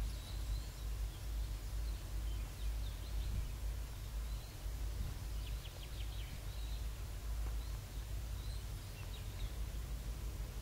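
Outdoor ambience: small birds chirping faintly and now and then, with a quick run of short chirps about five and a half seconds in, over a steady low rumble.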